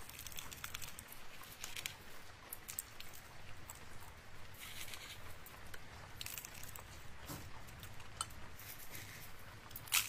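Loose sequins, glitter and tiny rhinestones being fingered and sprinkled from a small tub onto a crafted journal page: light crinkling and pattering with many small ticks, and one sharp tap just before the end.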